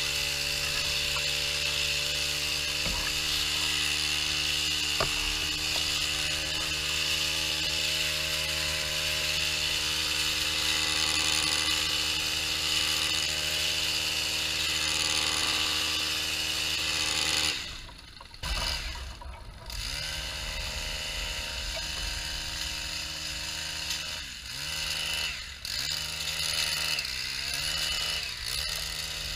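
A small engine of a garden power tool running at a steady speed, then dropping away about two-thirds through and coming back with its speed dipping and rising again several times.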